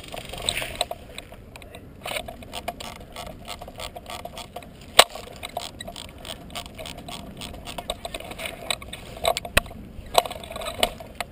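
Handling noise from a rifle-mounted action camera: irregular clicks, scrapes and rustles as the airsoft replica rifle is moved through dry grass and brush, with two sharp cracks, one about halfway and one later.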